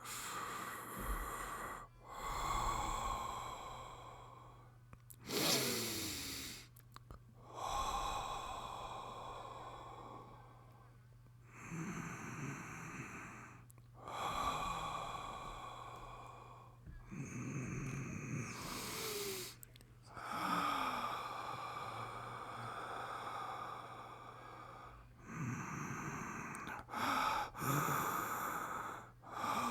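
A man breathing deeply and slowly, about a dozen long, airy inhales and exhales in turn, some exhales voiced like sighs with a falling pitch.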